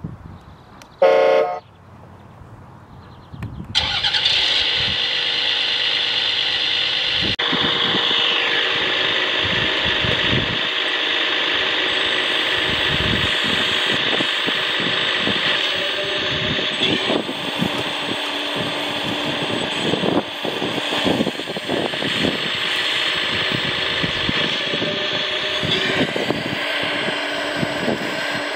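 Sound module of an RC Volvo EC480DL excavator playing a simulated diesel engine: a short horn blast about a second in, then the engine sound comes on near four seconds and runs steadily at working revs, with a high whine and occasional knocks as the bucket digs.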